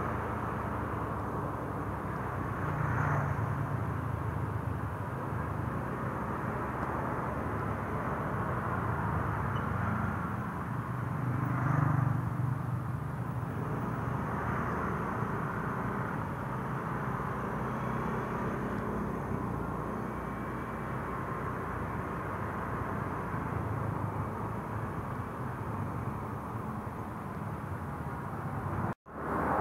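Yamaha motor scooter being ridden, heard from the rider's seat: a steady low engine drone under road and wind noise, swelling a little about twelve seconds in.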